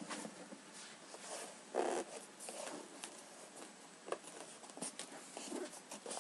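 Handling noise as a pair of carpeted guinea pig cage ramps are fitted together: scattered rustling, scraping and small clicks, with a louder bump about two seconds in.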